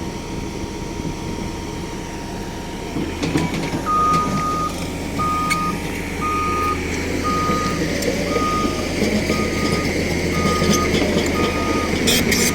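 A heavy machine's reversing alarm beeping about once a second, starting about four seconds in, over the steady rumble of a heavy engine.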